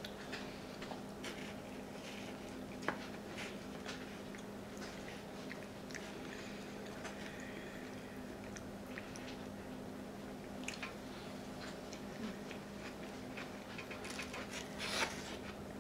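Close-miked chewing and wet mouth sounds of a person eating soft food, with scattered small clicks of a metal fork against a foam takeout box, one sharp click about three seconds in. A steady low hum runs underneath.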